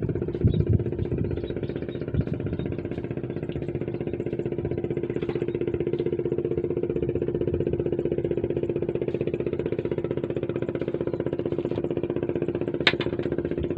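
A small engine running steadily with an even, rapid pulse, and a short sharp click near the end.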